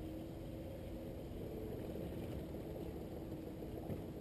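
Small boat's motor running steadily at low speed, a faint even hum.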